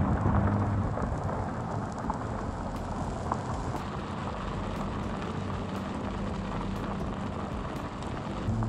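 Tyres crunching and crackling over loose gravel as the 2009 Subaru Forester drives along a dirt road, a steady gritty road noise with the engine only faintly underneath. Heard close to the wheel.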